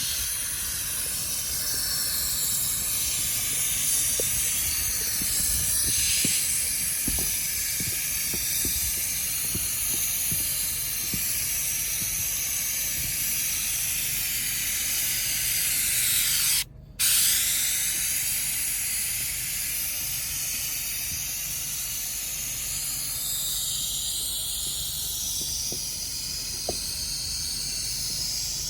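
Airless spray gun hissing steadily as it sprays liquid roof coating onto a metal roof. The hiss cuts out for a moment about two-thirds of the way through.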